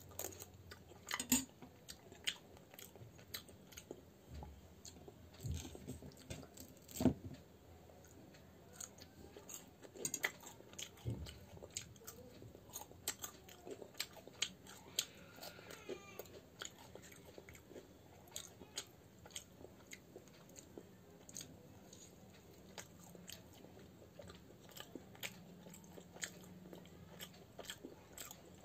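Close-up chewing and biting of fried puris with potato curry: irregular small crunches and clicks, with a louder one about a second in and another about seven seconds in.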